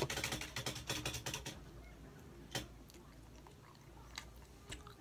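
Biting into a slice of pizza, the crust crunching in a dense run of crackles for about the first second and a half, then quieter chewing with a few separate mouth clicks.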